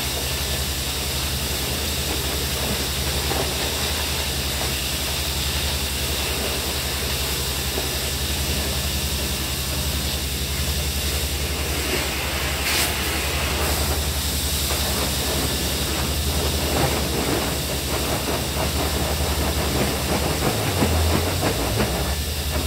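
Steady rushing hiss of industrial air equipment with a constant low hum underneath, unbroken throughout, and a brief knock about thirteen seconds in.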